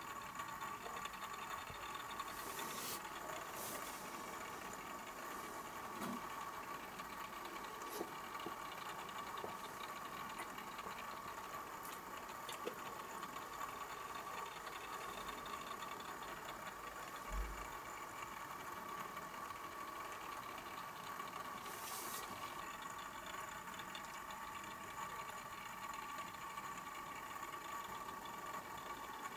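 Small electric motor of a rotating display turntable running with a steady hum and a constant whine, with a few faint clicks.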